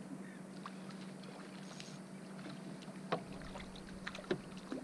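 A hooked fish splashing at the surface as it is reeled to a boat's side, with a few sharp, light knocks over a low steady hum.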